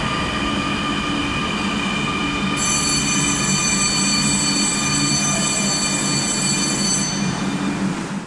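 The IGBT-VVVF traction inverter of a CRRC Qingdao Sifang–built BDK06 Beijing Subway train whines steadily as the train moves along the platform. A set of very high-pitched tones joins about two and a half seconds in and drops out near seven seconds.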